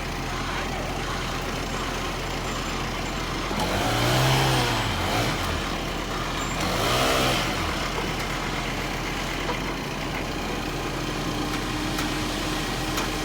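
A vehicle engine running steadily, revved up and back down twice, about 4 and 7 seconds in.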